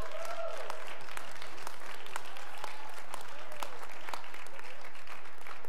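Audience applauding: many hands clapping steadily, with a few faint voices mixed in.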